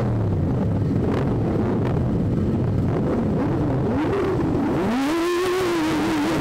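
Sport motorcycle engine at low parade speed, its pitch falling at first, then revved up and down in a few short rises and falls in the second half.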